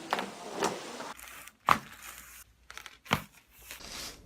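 Joints popping under chiropractic adjustments: four short, sharp cracks, the loudest a little before halfway through.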